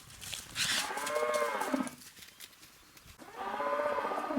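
Cattle mooing: two long moos, each lasting about a second and a half, with a pause of about a second and a half between them.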